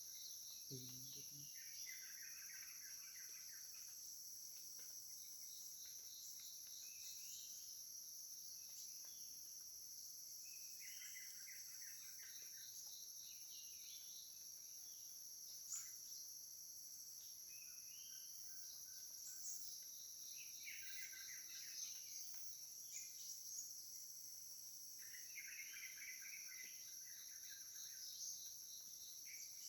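Steady, high-pitched chorus of forest insects, with a bird calling over it in short chirpy phrases that come back every few seconds.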